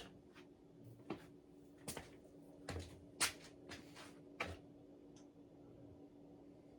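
Casablanca Panama II ceiling fan running on medium with a steady low motor hum, with about eight irregular sharp clicks over the first four and a half seconds.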